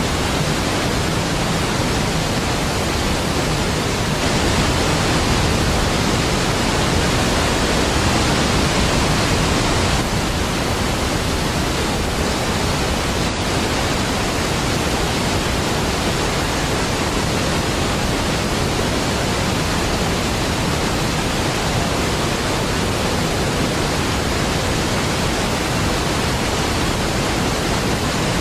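Large waterfall: a steady, deep rush of falling water with no breaks. It swells slightly about four seconds in and settles back around ten seconds.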